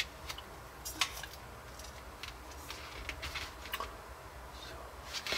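Light clicks and taps of a grey plastic miniature sprue being handled and laid on a desk. A few sharp clicks come near the start and about a second in, with softer taps later.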